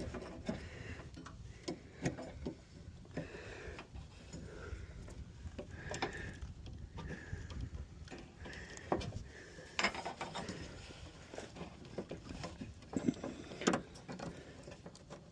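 Scattered metallic clicks and knocks of hand work on a lawn mower's deck, as the belt-tensioner spring is worked toward its eye bolt. The sharpest knocks come about ten seconds in and again near the end.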